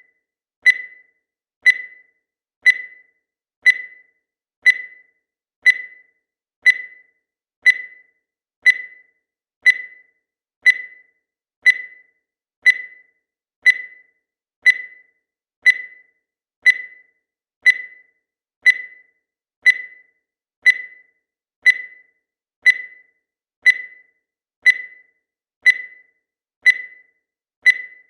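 Digital countdown timer beeping once every second: a short, high-pitched beep that fades quickly, repeating at a steady pace.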